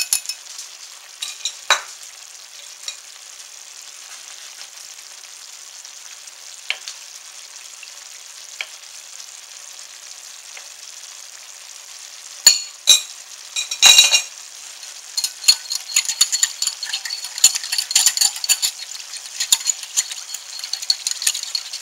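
A coiled wire whisk stirring cornstarch slurry in a glass bowl: quick metal-on-glass clicking, densest and fastest in the last third, with a few sharp knocks a little past halfway. A faint steady hiss from the simmering sauce runs underneath.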